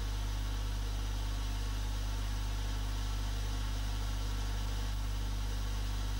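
Steady low electrical hum with a faint hiss, unchanging throughout, with no other sound.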